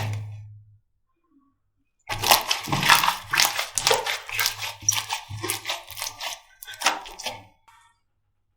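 Slime being squeezed and pressed by hand, giving a quick run of crackling pops for about five seconds after a single click at the start.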